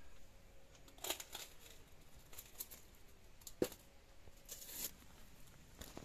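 Hands scrubbing and scraping in a steel plate by a hand pump: soft scrapes and rustles, light clinks, and one sharp knock on the metal a little past halfway.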